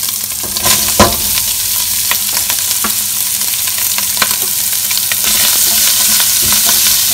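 Fatty pork pieces sizzling in their own rendered fat in a stainless steel pot as chopped onion is added, with scattered clicks and a sharp knock about a second in. The sizzle grows a little louder near the end.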